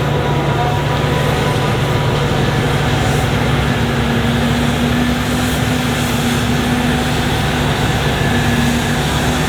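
Forage harvesting machinery running steadily at close range: diesel engines with a steady low drone under a loud, even rushing noise.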